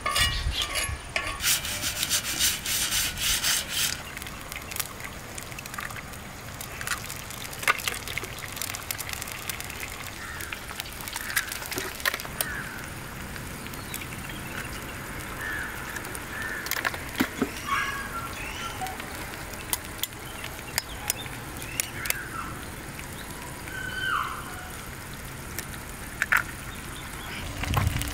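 Eggs frying in oil on a large iron griddle: a hissing sizzle with scattered crackles and spatters, loudest in the first few seconds.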